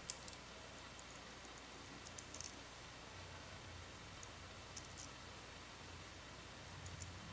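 Faint, sparse clicks of small metal parts being handled: M3 washers clicking together as they are threaded onto an M3 screw. There is a little cluster of clicks about two seconds in and a few more around four to five seconds, over a faint steady low hum.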